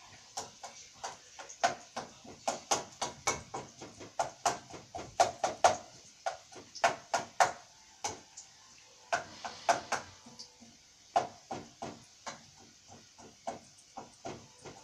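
A kitchen utensil knocking in a fast, uneven run of sharp clicks, about two to three a second, with short pauses partway through.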